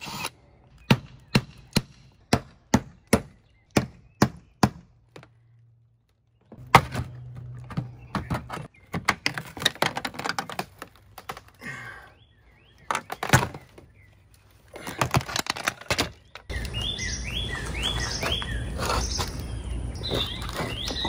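Hand work on a camper's aluminium window frame: a run of sharp, evenly spaced clicks, about three a second, for the first five seconds, then after a short pause irregular knocking and rattling as the frame is worked loose. Near the end a steady outdoor background comes in and a bird chirps several times.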